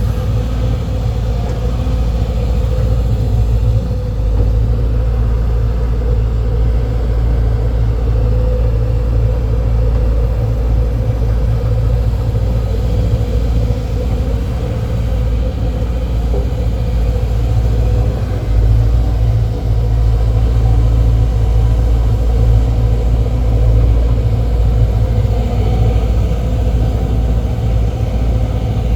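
Four-cylinder diesel excavator engine running steadily under work, a deep, even rumble.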